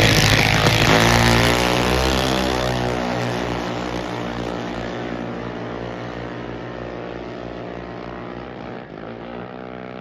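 Two dragsters launching off the line and running down the drag strip. The engine sound is loudest at the start and fades steadily as the cars pull away.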